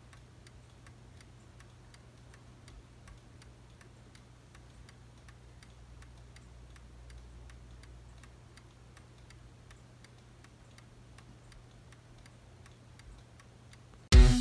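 Uncased Plymouth 891 (Seth Thomas-made) mantel clock movement ticking at an even, regular beat as its escapement runs the swinging pendulum; the movement has been freshly cleaned, re-bushed and pivot-polished. Guitar music cuts in at the very end.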